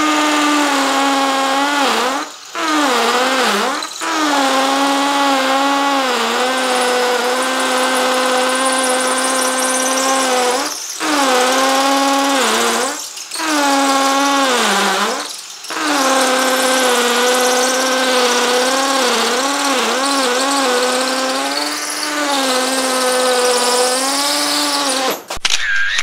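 Mollar MLR-CID20500-U cordless impact drill in hammer mode, drilling into concrete with an 8 mm bit at its high speed setting: a loud, steady motor whine. The pitch sags and recovers about five times as the bit loads up, and the drill stops just before the end.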